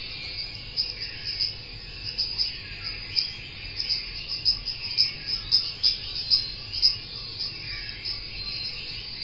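Insects chirping: many short, high chirps over a steady high buzz, growing denser and louder through the middle.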